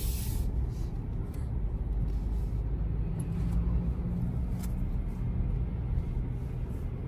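Steady low rumble of engine and road noise heard inside the cab of a Ford Ranger pickup on the move.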